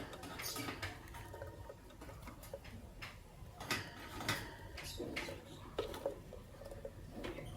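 Lovebirds in a cage: scattered sharp clicks and taps at uneven intervals, with a few faint, short chirps.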